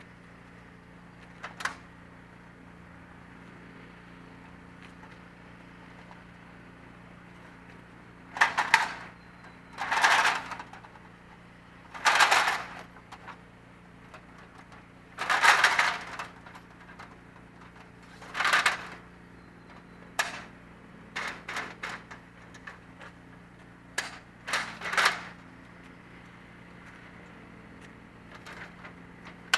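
Extension ladder being extended: several loud sliding scrapes with clanks, about every two to three seconds, then shorter knocks and clacks.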